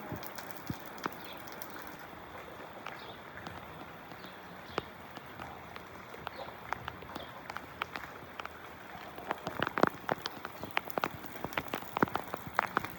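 Water drops pattering and splashing onto a wet surface, like rain. The drops are sparse at first and grow denser and louder in the second half.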